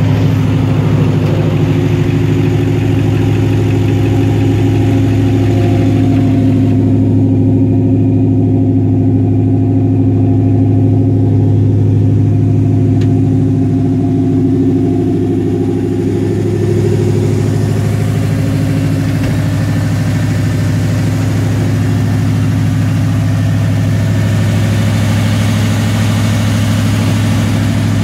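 The 1985 Ford F-150's Ford Racing crate engine idling steadily, with a deep, even hum.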